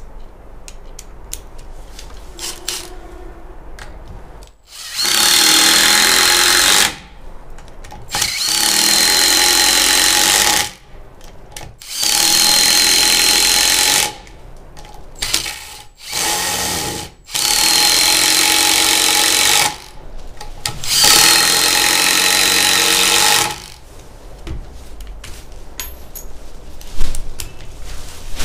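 Ryobi RID1801M 18 V cordless impact driver driving 5×70 mm wood screws into a timber beam: five loud runs of about two seconds each, one per screw, with short pauses between them. In the pauses there are small clicks as the next screw is set.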